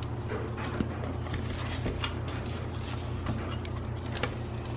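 Bissell PowerForce Helix Turbo upright vacuum cleaner running steadily while vacuuming a rug, with scattered clicks on top of its hum.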